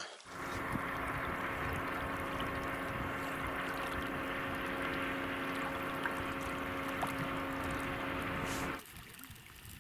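Outboard motor of a small boat running steadily at a constant hum, with water noise; it cuts off suddenly near the end.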